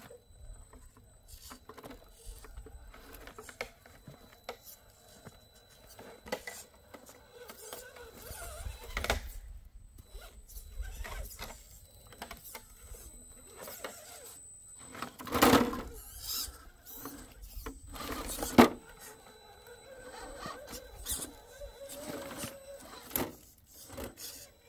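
Electric RC rock crawler on a Redcat Wendigo chassis climbing wet rocks: its motor and gears run in short spurts while the tyres scrape and the chassis knocks against stone. Two louder knocks come a little past the middle.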